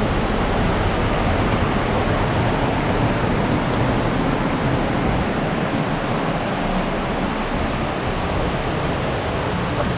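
A steady, even rushing noise with no distinct events, easing slightly towards the end.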